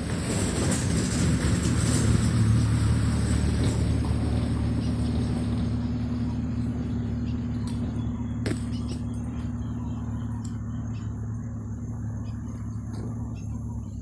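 A motor vehicle's engine running steadily with a low hum. It is loudest about two seconds in and slowly fades as it moves away.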